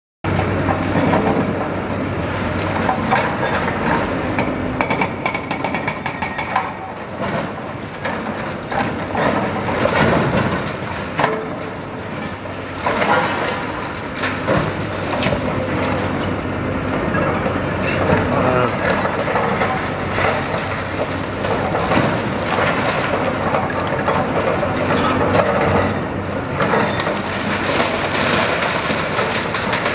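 Hydraulic excavator demolishing a brick building: its diesel engine runs steadily under a continuous clatter and crash of breaking masonry and falling debris. A quick rattling run of strokes comes about five seconds in.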